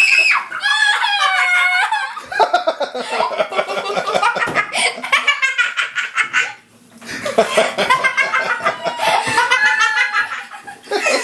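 Hard laughter in repeated high-pitched bursts and giggles, breaking off briefly about two-thirds of the way through before starting up again.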